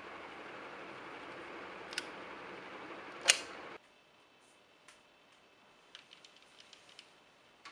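A steady hiss with a faint click about two seconds in and a sharp, louder click about three seconds in, as a wall-socket switch is flicked. The hiss cuts off abruptly half a second later, leaving only a few faint ticks.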